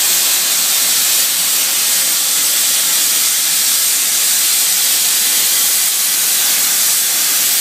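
Torch of a CNC pipe cutting machine cutting through a large-diameter steel pipe: a steady, loud hiss.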